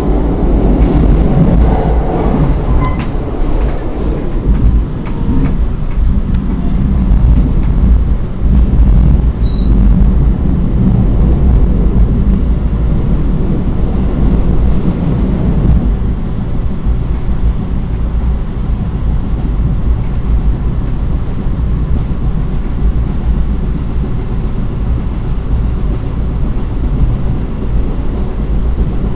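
NJ Transit Atlantic City Line passenger train running at speed, heard from inside the car: a steady, loud, low running noise of the car and its wheels on the rails, with a few light clicks in the first few seconds.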